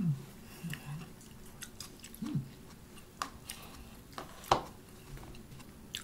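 A person eating at a table: quiet chewing and small clicks of a bowl and utensils, with one sharper knock about four and a half seconds in.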